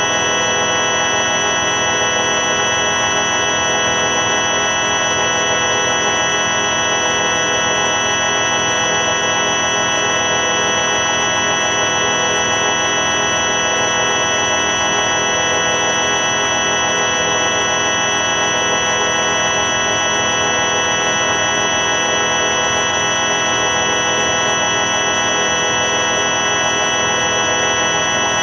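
The 4ormulator V5 sound effect played at the wrong pitch: a loud, unchanging synthetic drone of many stacked steady tones, organ-like and buzzy, held without a break.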